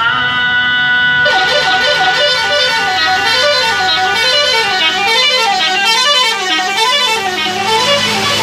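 A bus's multi-tone "telolet" musical horn playing. It holds a steady chord for about a second, then plays a tune of quick stepped notes that climb and fall again and again.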